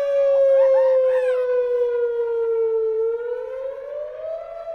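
Four-horn electronic outdoor warning siren sounding a test wail. One steady tone slides slowly down in pitch, then rises again about three seconds in, while the sound grows fainter.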